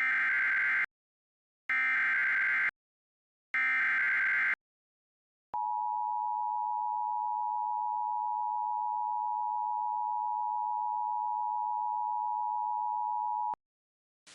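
Emergency Alert System signal: three short bursts of SAME digital header data, then a steady two-tone EAS attention signal held for about eight seconds. The tones open a Severe Thunderstorm Warning.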